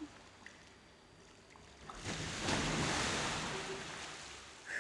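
Inflatable water-walking ball rolling on a swimming pool as the person inside loses his footing: a rise of rushing, sloshing water and plastic noise about two seconds in, fading away near the end.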